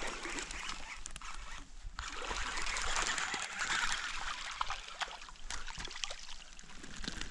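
Hooked bass splashing and thrashing at the surface of the water as it is reeled in, with uneven sloshing that is loudest around the middle and a few sharp clicks.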